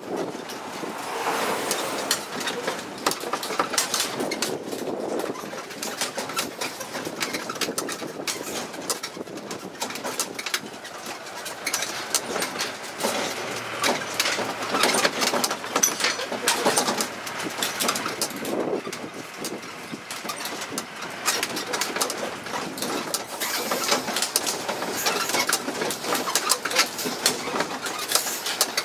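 Running noise heard from aboard a mini tourist road train: the open carriages rattle and clatter steadily as the train rolls along, with its engine running underneath.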